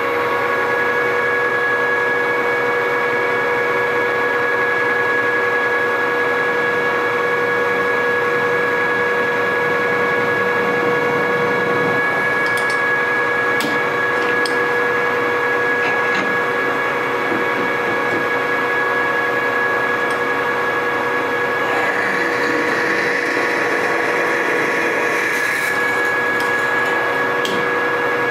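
Precision Matthews PM1440TL metal lathe running steadily at speed, a loud whine of several steady pitches. A few sharp clicks come around 13 seconds in, and a rougher cutting noise joins for a few seconds about 22 seconds in as the tool works the tube end.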